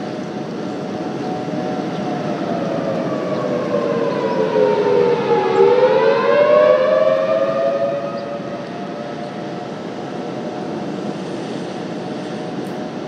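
Rotating-horn outdoor warning siren sounding the attack signal. Its pitch slides down and then climbs back up once, growing louder to a peak a little past the middle as the horn swings toward the listener, then falling back.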